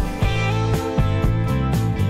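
Background music with a steady beat of about two strokes a second.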